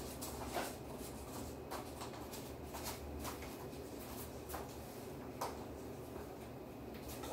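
Faint, scattered plastic clicks and light knocks of foam darts being handled and pushed into a Nerf blaster's magazine.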